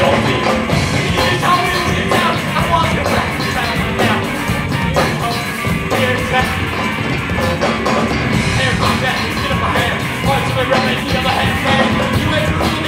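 A rock band playing live and loud: electric guitars, bass guitar and a drum kit.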